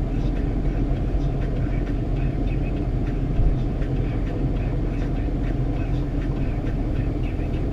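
Steady low rumble of vehicle engine and road noise in traffic, with a small knock about three and a half seconds in.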